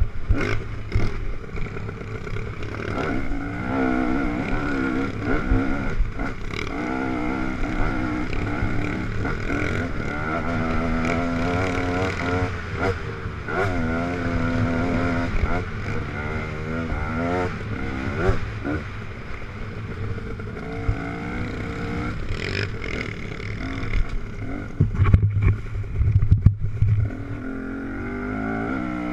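Dirt bike engine, heard from a helmet camera, revving up and falling back again and again as the bike climbs a single-track trail. A cluster of loud low thumps comes near the end.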